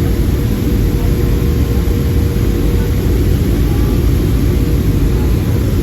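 Steady, loud low rumble of a Boeing 757-200 jet airliner's engines and airflow, with a faint constant whine above it.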